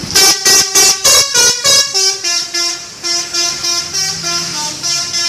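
Multi-tone telolet air horn of the kind fitted to Indonesian buses, playing a rhythmic tune. A fast run of short toots over the first two seconds is followed by longer notes that step between several pitches.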